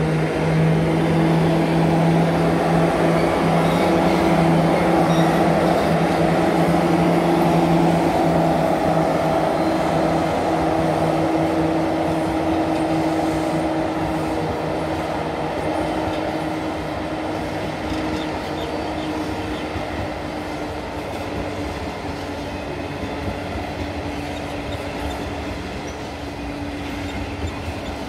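Freight train hauled by several NSW 81 class diesel-electric locomotives going past: engine noise with a steady low hum, loudest over the first ten seconds or so, then the freight wagons rolling by on the rails as the sound slowly fades.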